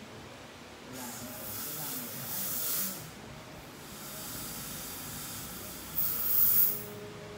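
Dental air syringe blowing compressed air during root canal treatment: a hiss of about two seconds, then a shorter, louder one near the end.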